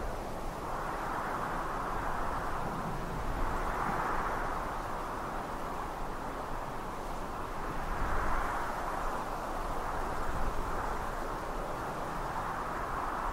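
Strong wind blowing across an exposed hilltop and buffeting the microphone, a steady rushing noise over a low rumble that swells and eases in gusts every few seconds.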